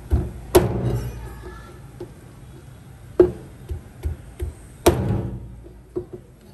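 Kitchenware being handled: a series of sharp knocks and taps, the loudest three about half a second, three seconds and five seconds in, each ringing briefly.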